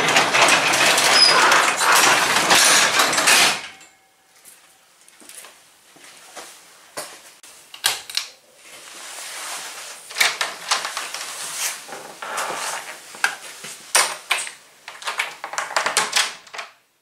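A manual overhead garage door being pulled down and rolling shut, a loud rattle lasting about three and a half seconds. After it come scattered light clicks and knocks of handling.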